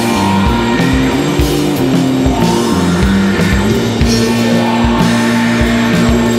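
Instrumental post-rock band playing live: electric guitars and bass holding long notes that change pitch every second or so, over steady drum hits.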